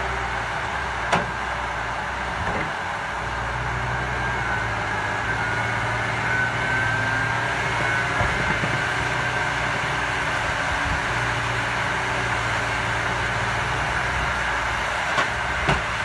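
Diesel engine of a tracked timber harvester running steadily while its boom and processing head handle logs, with a few short knocks, one about a second in and two near the end.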